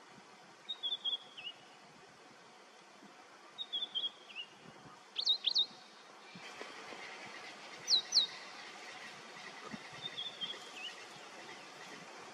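Birds calling: short twittering chirp phrases three times, a pair of sharp high whistles about five seconds in and another pair about eight seconds in, over a soft steady hiss that gets a little louder about six and a half seconds in.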